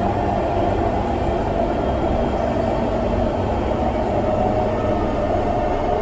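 SMRT C151 metro train running steadily, a continuous rumble of wheels and running gear with a faint hum that drifts slightly in pitch.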